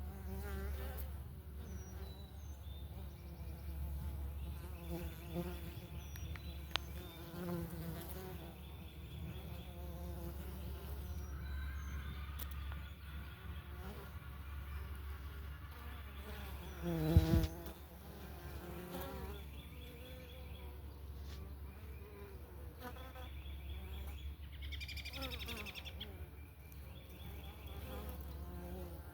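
Italian honey bees buzzing around their hive, single bees flying past close with a buzz that rises and falls as each comes and goes. One bee passes right by about 17 seconds in, the loudest buzz.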